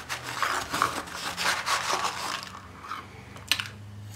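Tablespoon scooping baking soda powder, a gritty scraping and crunching, then a light tap near the end.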